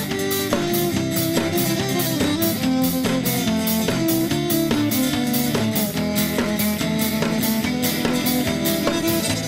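Fiddle and acoustic guitar playing a lively tune together over a steady percussive beat.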